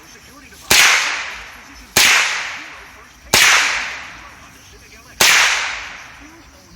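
Smith & Wesson M&P15-22 semi-automatic rifle firing .22 LR rounds: four single shots at an unhurried pace, about one and a half seconds apart, each followed by a fading echo.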